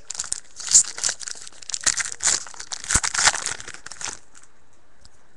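Crinkling and tearing of a foil trading-card pack wrapper as it is ripped open and handled, stopping about four seconds in.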